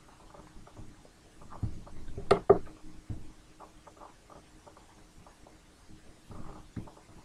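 Scattered faint clicks and knocks over a low steady hum, with one sharper, louder knock about two seconds in.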